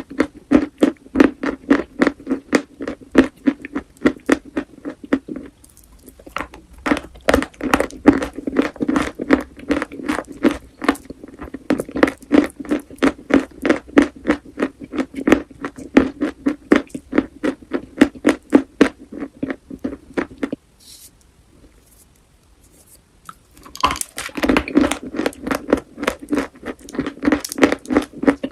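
Close-miked chewing of crunchy chalk, a fast, even run of crunches about four a second. The chewing stops briefly about six seconds in and for about three seconds later on, then resumes.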